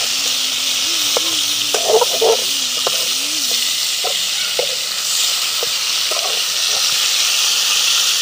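Fish pieces frying in hot oil in an aluminium karai: a steady sizzle, with a metal spatula clinking and scraping against the pan as the pieces are turned, a cluster of knocks about two seconds in.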